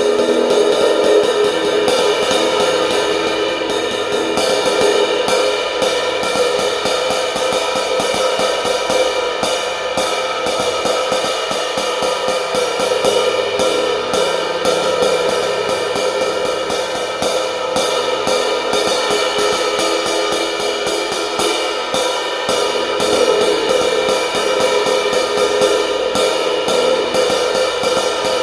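A 20-inch Zildjian K Sweet Brilliant crash cymbal (prototype) struck over and over with drumsticks, rapid strokes one after another over a steady, sustained cymbal wash that never dies away.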